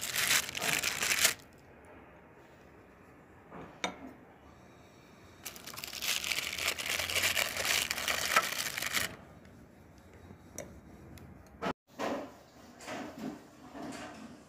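Butter paper crinkling and rustling in two bursts, a short one at the start and a longer one from about five to nine seconds in, with a few light clicks between them, as a hand handles the chocolate-coated truffles resting on the paper.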